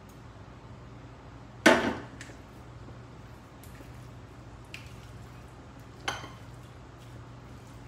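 A saucepan set down on a gas stove's grate with one loud ringing clank, then a few lighter clinks of a spoon against a ceramic bowl as cauliflower and cheese sauce are stirred.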